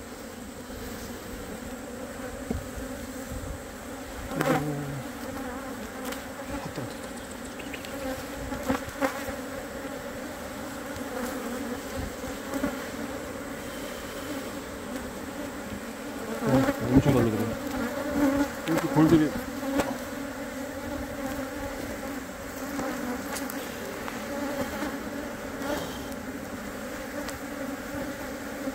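A colony of Korean native honeybees (Asian honeybees) buzzing over exposed comb in an opened box hive, a steady, dense hum. It swells louder briefly about four seconds in and again for a few seconds past the middle.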